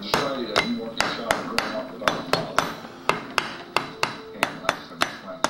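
Rubber mallet tapping the cylinder of a Honda CR85 two-stroke engine down over its dowels onto the crankcase: a steady run of short, sharp taps, about four a second, each with a brief ring.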